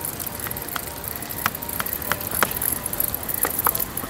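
Fishing reel being worked on a rod, giving irregular light ticks, over a steady high hiss.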